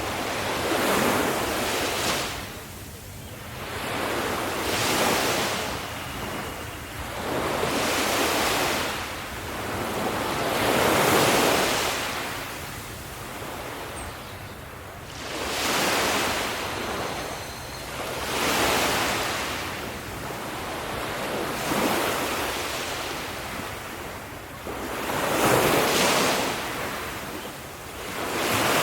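Ocean waves breaking on the shore in a steady rhythm, each wash of surf swelling and falling back about every three to four seconds over a low, steady rumble.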